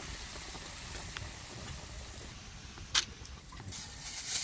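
Beef pieces boiling in a metal pot: a steady bubbling hiss, with one sharp click about three seconds in.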